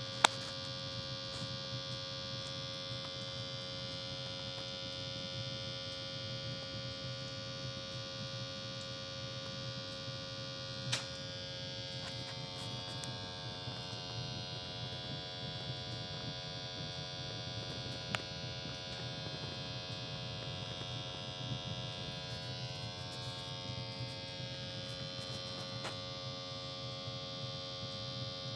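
Double Shoebox Rocket (DSR1+) batch-box rocket stove firing at full bore: a steady, humming rush of the fire's draft, with a few sharp pops from the burning wood.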